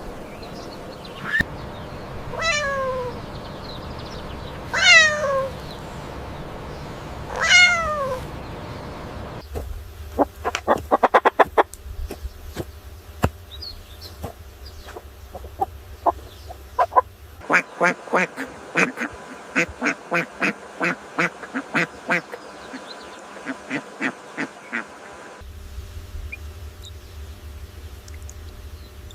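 A sequence of different animal calls: three falling calls about two and a half seconds apart, then bursts of rapid clicking calls from about ten seconds in, then a run of short calls about three a second from about seventeen seconds in.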